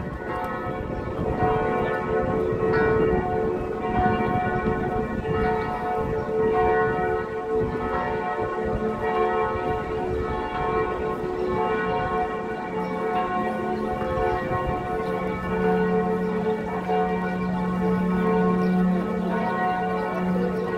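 Bells ringing continuously, many overlapping ringing tones, with a deeper tone growing stronger about three-quarters of the way through.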